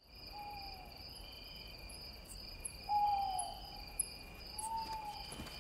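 Night ambience: an owl hooting three times, each hoot a short single note that falls slightly in pitch, the middle one loudest, over steady chirping of crickets.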